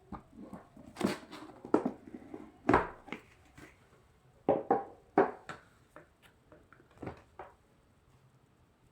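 A cardboard game box and its contents being handled: irregular knocks, taps and rustles, with the loudest knocks in the first three seconds and again around five seconds in, tailing off near the end.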